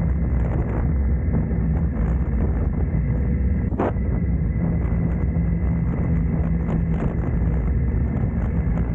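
Triumph Tiger 900 GT's three-cylinder engine running at a steady cruise, with wind noise on the microphone. A single short knock about four seconds in.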